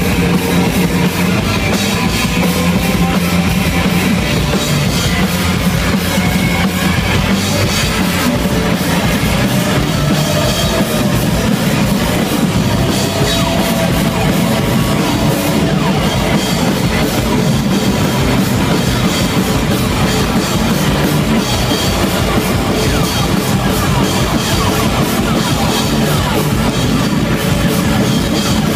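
Live rock band playing loud: electric guitars and a drum kit, dense and continuous.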